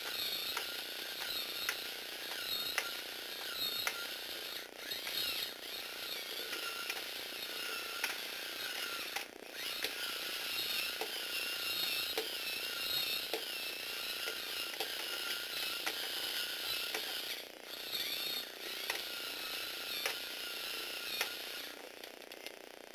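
Lego Technic eight-legged walking robot turning in place: its electric motor and plastic gear train run with a steady, wavering whine, while the gear-driven linkage legs click as they step. It stops about a second before the end.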